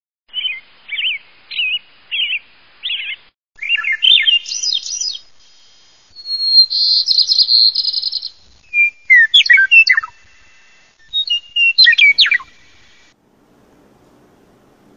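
A songbird singing in varied whistled phrases: first a string of short repeated notes, then quicker twittering and a long rapid trill, with further sharp phrases after it. The song stops about 13 seconds in, leaving only a faint low hum.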